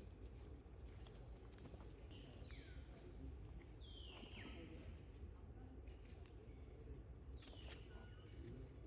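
Baby long-tailed macaque giving three faint, high-pitched squeals, each sliding down in pitch, while an older monkey grabs at it.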